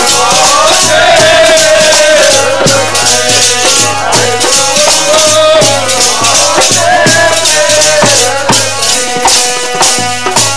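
Sikh devotional kirtan music: a dhol drum beating a steady rhythm and chimta tongs jingling, under a wavering melody line.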